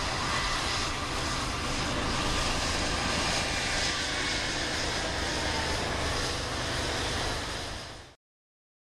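Canadian Pacific GE ES44AC and AC4400CW diesel-electric locomotives standing with their diesels running at Run 8, a loud steady rumble. It fades out and cuts off about eight seconds in.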